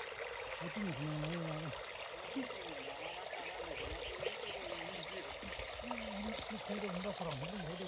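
Steady running, trickling water, like a small stream, with low voices talking faintly now and then.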